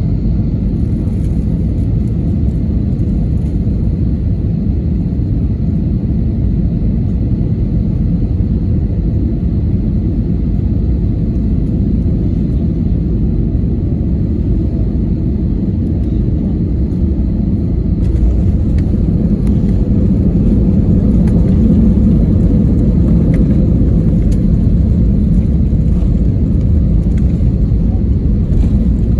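Cabin noise of an Airbus A320 landing: a steady low rumble of engines and airflow. About eighteen seconds in the sound changes and grows louder for several seconds as the jet touches down and brakes on a wet runway with its ground spoilers up.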